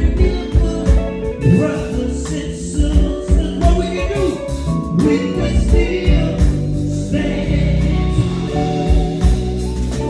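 Band music with singing voices over a full low end, and an electric guitar, a Gibson 339, playing along.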